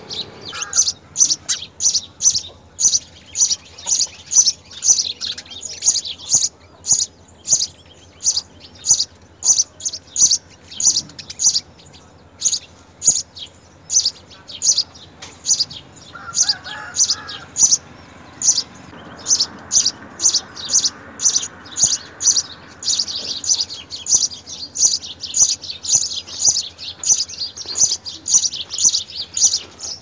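House sparrows chirping at the nest, a steady run of short, high cheeps about two to three a second that grows denser and louder over the last several seconds.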